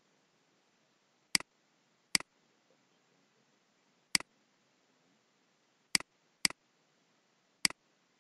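Six sharp computer mouse clicks at uneven intervals, each a quick double snap of press and release, two of them in quick succession near the end, over a faint hiss.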